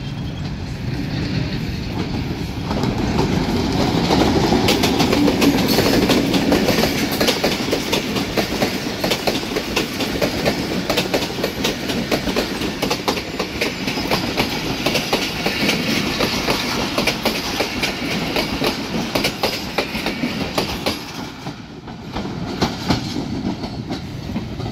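Pakistan Railways Hitachi diesel-electric locomotive and its passenger coaches passing close by. The engine's rumble is loudest about five seconds in, then the coach wheels clatter over the rail joints in a fast run of clicks. Near the end the sound dips briefly and the clatter comes back.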